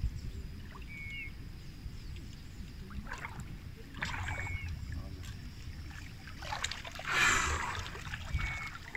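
Water splashing and sloshing as a hooked carp is played in to be landed, loudest about seven seconds in.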